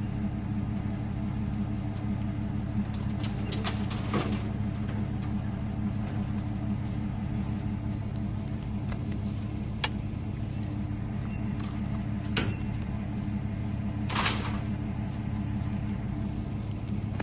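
A vehicle engine idling steadily, with a few scattered knocks and clatters of items being handled.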